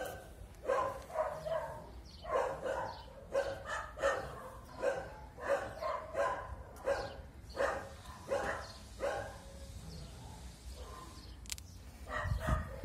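A dog barking in a quick run of short barks, two or three a second, that stops about nine or ten seconds in.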